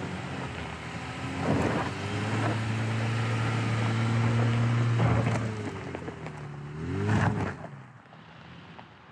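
Pickup truck engine pulling hard at heavy throttle up a steep hill climb. The revs rise about a second and a half in, hold steady for several seconds, then drop away, with a short rev up and down near the end.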